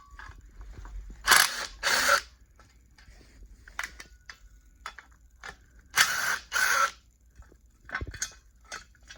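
Socket ratchet clicking in short strokes, two quick strokes about a second in and two more about six seconds in, with light metal clicks and knocks between them: the heat-shield bolts on the stock exhaust being worked loose.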